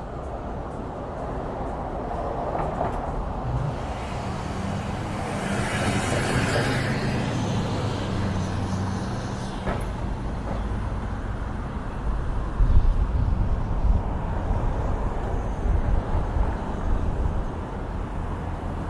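Street traffic with a large vehicle's engine running steadily. About six seconds in there is a hissing swell, and the low rumble grows heavier in the second half.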